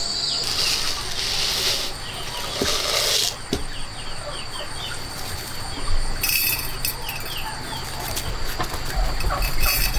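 Chickens clucking and calling in short repeated chirps over a steady high insect drone, with two bursts of hissing noise in the first few seconds.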